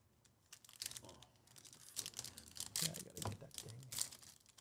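Foil wrapper of a trading card pack being torn open and crinkled, a dense run of crackles starting about half a second in.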